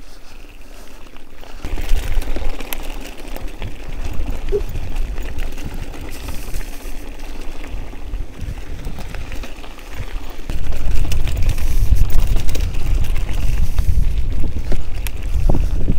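Wind rumbling on the microphone of a camera riding along on a bicycle, getting louder about two seconds in and again, more strongly, about ten seconds in.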